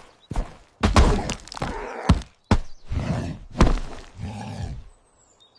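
A fall: a series of thuds and knocks in the first couple of seconds as someone tumbles, then pained groaning.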